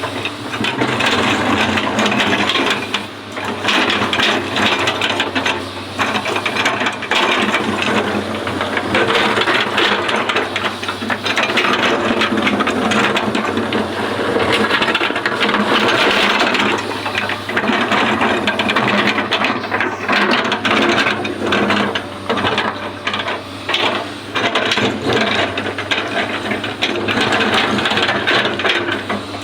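Hydraulic excavator at work: a steady low engine hum under continuous rattling and scraping.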